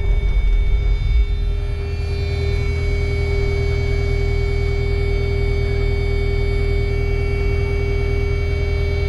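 Kubota KX080 excavator running steadily, a constant machine hum with a steady whine over it.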